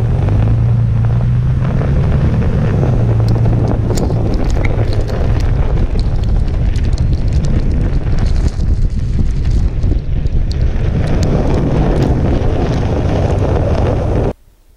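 Wind buffeting a GoPro mounted low on the rock rail of a moving Toyota FJ Cruiser, mixed with tyre and road noise from the vehicle driving over snow and ice, with scattered small ticks. The noise cuts off suddenly near the end.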